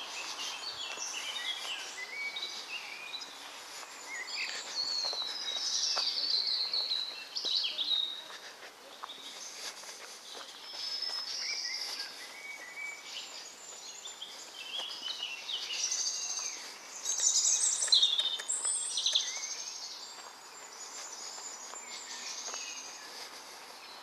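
Several songbirds singing at once in woodland: overlapping phrases of chirps, whistles and quick trills, with the loudest burst of song about three-quarters of the way through.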